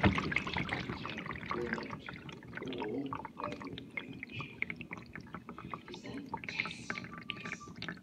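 Water inside a GE dishwasher dying down over the first couple of seconds, leaving dripping and gurgling with scattered clicks. Faint voices in the background.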